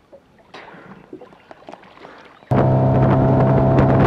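Faint water splashing, then about two and a half seconds in a loud, steady motorboat engine idling starts abruptly.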